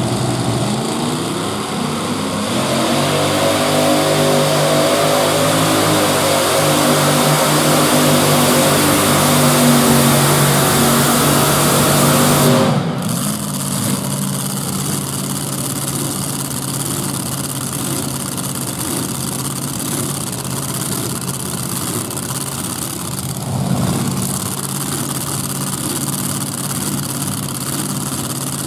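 Modified pulling tractor's multiple supercharged engines at full throttle under load, the pitch climbing through the pull. About 13 seconds in they cut back abruptly to idle as the run ends, with one brief rev later on.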